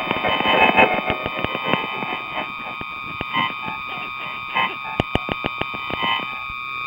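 Electronic noise improvisation on a VTech KidiJamz Studio toy keyboard: a steady, high-pitched electronic tone held throughout, broken by a scatter of rapid, irregular glitchy clicks that are densest in the first second and thin out after.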